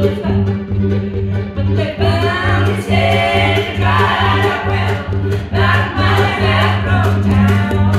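Live acoustic string band of fiddle, cello and upright bass playing an old-time bluegrass tune at a steady pulse. Several voices sing in harmony from about two seconds in.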